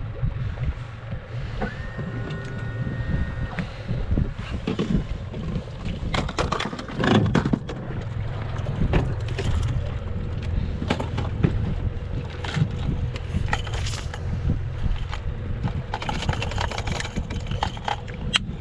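Boat under way: a steady motor rumble with wind on the microphone and repeated knocks as the hull runs over chop.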